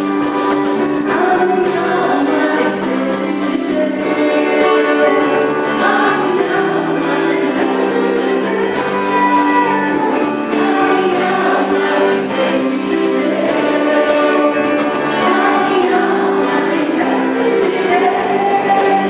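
A psalm sung with instrumental accompaniment, held melodic lines carrying on throughout.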